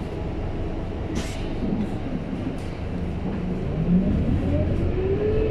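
Road vehicle heard from inside the cabin, its engine low and steady, then pulling away with an engine note that rises steadily through the second half. A short hiss sounds about a second in.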